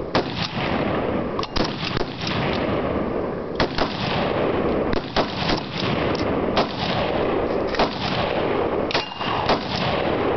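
Many full-auto machine guns firing at once: an unbroken din of automatic fire, with louder individual shots cracking through it at irregular intervals, one to three a second.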